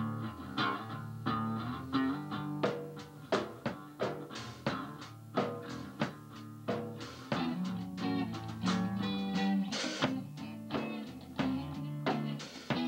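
Live rock band playing: a drum kit with regular drum and cymbal hits over a moving electric bass line, with guitar.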